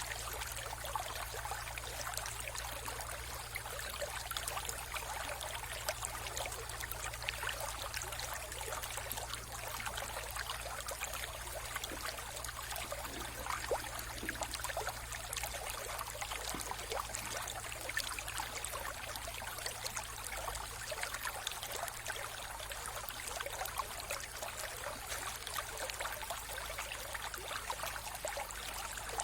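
Mountain river flowing: a steady, even rush of water, flecked with many small splashes and gurgles.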